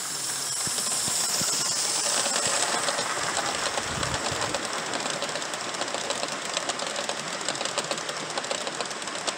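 A Gauge 1 model train, a steam locomotive hauling a string of coaches, running past close by. A hiss is heard for the first couple of seconds as the locomotive passes, then the wheels click rapidly on the track as the coaches roll by.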